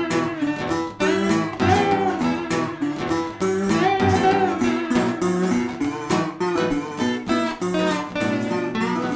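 Background music: a blues-rock song carried by strummed and plucked guitar with a steady beat.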